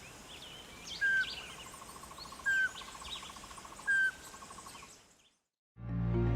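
Birds calling: three short, loud calls about a second and a half apart, among fainter high chirps and a fast pulsing trill. The sound cuts off near the end and music begins.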